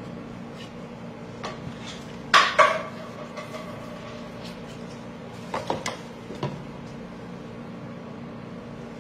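A cardboard ice cream pint being handled and peeled on a wooden cutting board: two sharp knocks about two and a half seconds in, then a few lighter clicks and taps past the middle, over a steady low hum.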